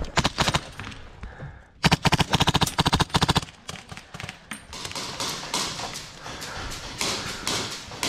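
Airsoft rifle firing: a few single shots, then a rapid full-auto burst of about a second and a half, the loudest part, followed by fainter scattered shots.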